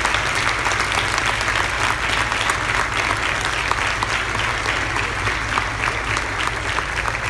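Large audience applauding: a dense, steady clatter of many hands clapping.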